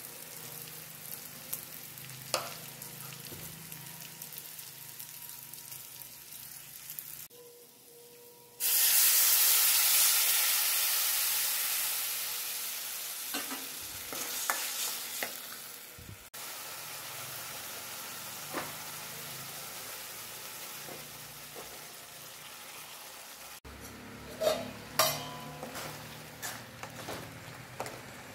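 Oil sizzling steadily in a pan as a tempering of shallots, dried red chillies and curry leaves fries. About a third of the way in, a sudden loud hiss as tamarind water hits the hot pan, fading over several seconds. Near the end, a metal spoon stirs the thickening gravy with a few sharp clinks against the pan.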